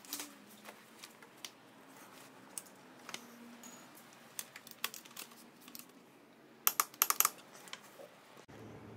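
Faint, scattered light clicks and taps, with a quick run of several clicks about seven seconds in.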